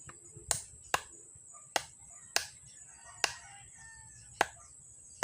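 About six sharp, irregularly spaced taps as a replacement shaft is knocked into an electric fan's rotor; the shaft is a tight fit.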